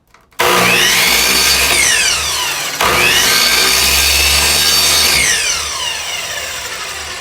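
Power saw cutting wood in two passes, starting about half a second in with a brief break near three seconds; its motor pitch rises and then falls away under load each time, and the sound fades toward the end.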